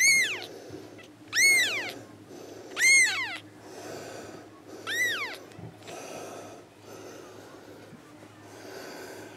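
A 2½-week-old Persian kitten mewing: four high-pitched cries about one and a half to two seconds apart, each rising and then falling in pitch. After the fourth it goes quieter.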